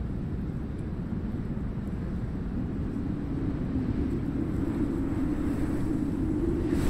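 A low, steady rumble that slowly grows louder, deepening into a fuller drone about halfway through.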